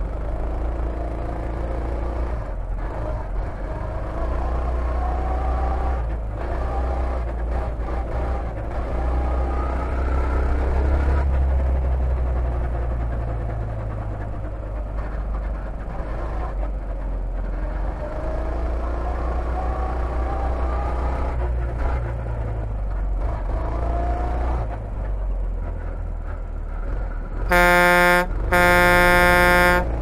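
Rental go-kart engine heard onboard, its pitch rising on the straights and falling off into the tight corners, over and over. Near the end, two loud horn blasts, the second longer.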